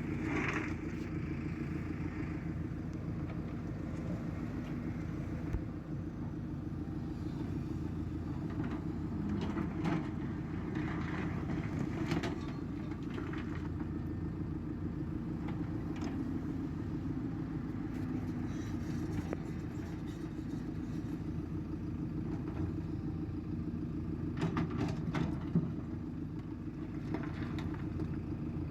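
Diesel engine of an earthmoving machine running steadily as it digs, with scattered knocks; the sharpest comes near the end.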